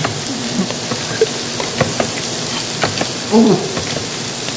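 Plastic rice paddle scooping and fluffing cooked rice in an electric rice cooker's inner pot, with a few light clicks of the paddle, over a steady hiss; a man grunts briefly about three seconds in.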